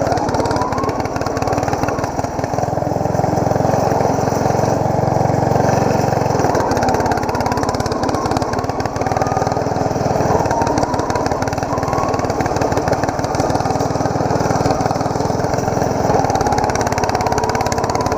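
Ariens YT11 lawn tractor's engine running continuously as the tractor is driven, its pitch and load shifting a few times, with a faint whine that rises slowly.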